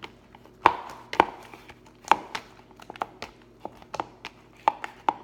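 Sticky homemade Tide-activated slime being squeezed and pulled by hand, giving about eight sharp, irregular wet clicks and pops.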